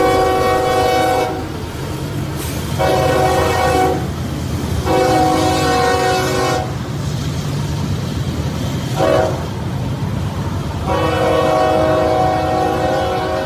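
A BNSF freight locomotive's multi-chime air horn blowing in separate blasts over the steady low rumble of the passing train. A blast ends about a second in, then come two long blasts, a short one, and a final long blast near the end. The last four make the long-long-short-long grade-crossing signal.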